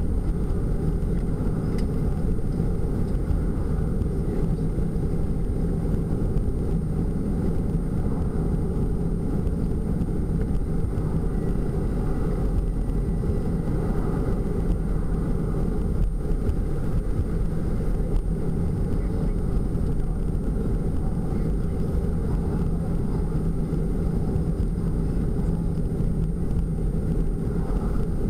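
Steady road and engine noise inside the cabin of a van cruising along a paved road.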